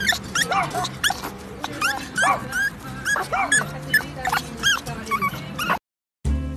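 Small Pomeranian-type dog whining in short high rising-and-falling cries, several a second, over background music; the cries stop suddenly near the end.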